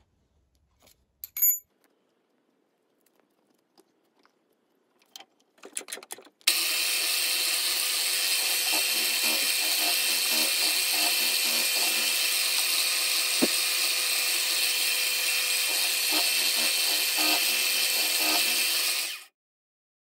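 Milling machine running with a spinning end mill cutting an aluminium connecting rod to shape: a loud, steady hiss that starts abruptly about a third of the way in and stops suddenly near the end. Before it come a few light clicks and a short ringing metal clink.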